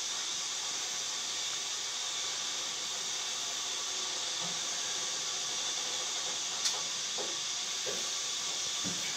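Steady high hiss at an even level, with one sharp click about six and a half seconds in and a few faint short sounds near the end.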